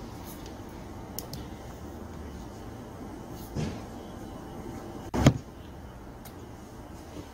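Small clicks and knocks of a screwdriver and metal carburetor parts being handled as a blower's carburetor is taken apart, with a short thud a little past halfway and one sharp knock about five seconds in, the loudest sound.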